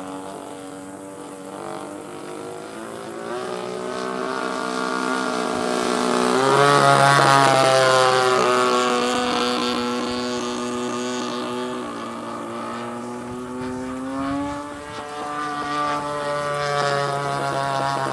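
36cc gas engine and propeller of a Yak-55M radio-controlled aerobatic plane running in flight with its muffler still on. It grows louder to a peak about seven seconds in as the plane passes closer, and its pitch steps up and down with the throttle.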